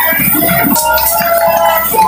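Background music with held melodic notes.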